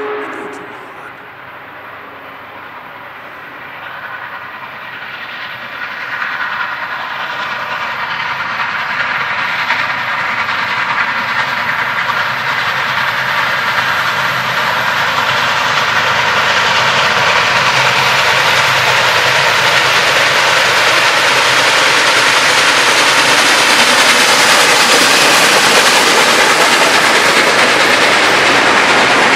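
Union Pacific Big Boy 4014, a huge articulated 4-8-8-4 steam locomotive, approaching and running past at close range. The noise of the engine and its wheels on the rails grows steadily louder over the first half, then stays loud as the passenger cars roll by.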